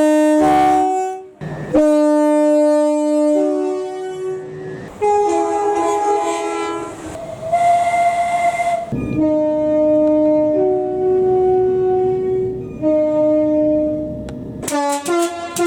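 Train air horn played as a tune: long and short blasts alternating between a low and a higher note, with some notes sounded together in the middle and a quick run of short toots near the end.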